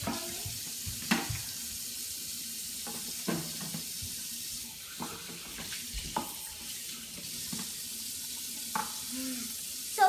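Kitchen faucet running steadily into a stainless-steel sink as plastic dishes are rinsed under the stream, with a few light knocks as the dishes are handled.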